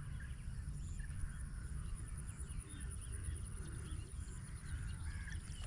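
Many small birds chirping and twittering in a rural waterside chorus, over a steady high-pitched insect whine and a low rumble.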